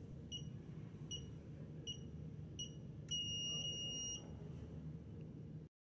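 La Gard biometric safe lock keypad beeping: four short high key-press beeps about once a second as code digits are entered, then one long beep of about a second signalling that the code is accepted and the lock is open.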